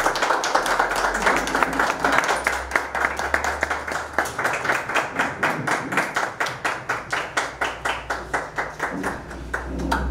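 A small group applauding. The dense clapping settles into a quick, even beat of claps in unison in the second half, then stops just before the end.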